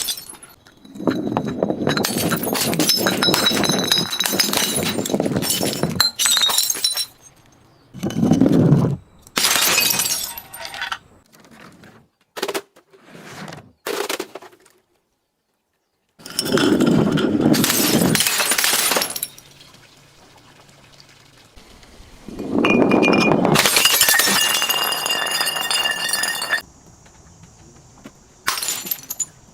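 Glass bottles being broken and crushed, with crunching and shattering and clinking, ringing shards. This comes in about seven separate bursts, a few seconds apart. Roughly halfway through, the sound drops to dead silence for a second or two.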